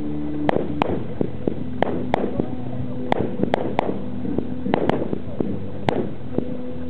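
Fireworks display: aerial shells bursting in the sky, about a dozen sharp bangs at irregular intervals.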